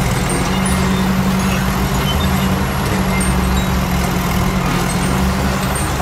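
Heavy machine's diesel engine running steadily as a cartoon sound effect, a low hum over a noisy hiss.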